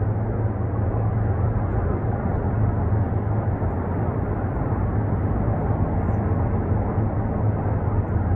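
Two distant Sikorsky UH-60 Black Hawk helicopters in flight, heard as a steady low drone.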